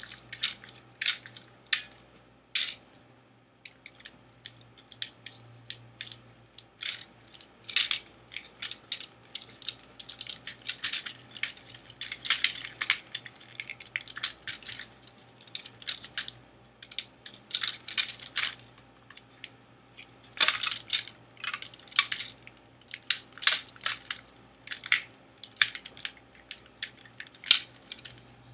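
Hard plastic parts of a Transformers Weaponizer Optimus Prime action figure clicking and clacking as they are handled, a dense run of irregular sharp clicks.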